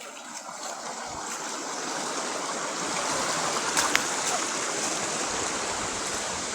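Rushing water of a waterfall, a steady hiss that grows louder over the first few seconds and then holds, with a couple of brief clicks about four seconds in.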